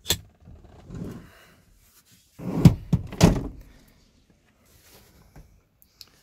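Car front seat being handled and moved: a sharp click at the start, a rustle, then two heavy dull thumps about half a second apart.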